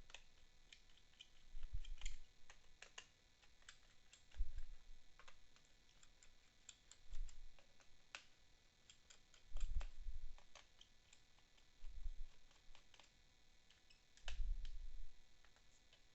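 Small Phillips screwdriver backing out the bottom-cover screws of a Dell Latitude 5500 laptop: scattered light clicks and ticks of metal tip on screw heads and plastic case, with a dull knock every two to three seconds as the laptop or tools are handled.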